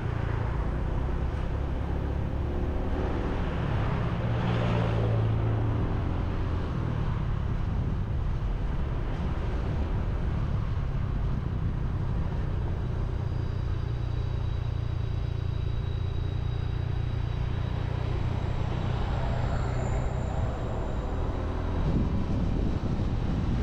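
Motorbike engine running steadily while riding along a highway, mixed with a heavy low rumble of road and wind noise and the traffic around it.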